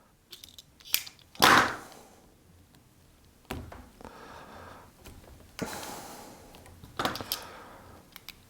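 Hand wire strippers clicking and snapping as they pull insulation off thin copper conductors: a few sharp clicks and several short scraping bursts, with the blue insulation stripping with some difficulty.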